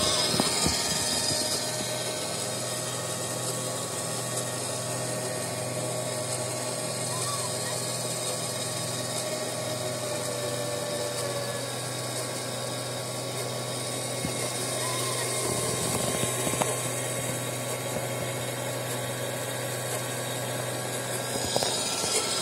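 Steady hum and whir of a FelFil desktop filament extruder and its automatic spool winder running, with a low drone and a few faint steady tones above it.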